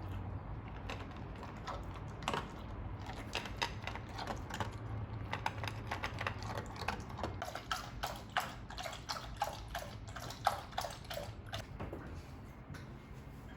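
A run of irregular light clicks and taps, several with a short ringing note, over a steady low hum.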